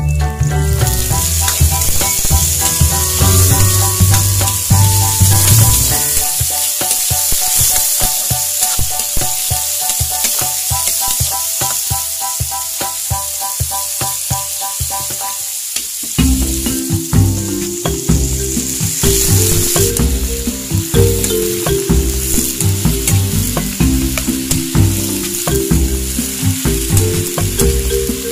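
Cut vegetables (carrots, green beans, cabbage) sizzling as they stir-fry in a metal pan, with scattered clicks and scrapes from stirring. Background music plays over it throughout.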